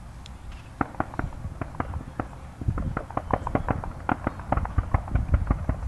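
Fireworks crackling: a rapid, irregular run of sharp pops beginning about a second in and growing denser and louder from about three seconds.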